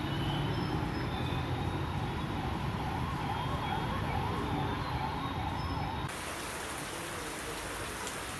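Road traffic on a waterlogged street, with a siren-like tone rising and falling about twice a second through the middle. About six seconds in, it cuts abruptly to a steady hiss of rain.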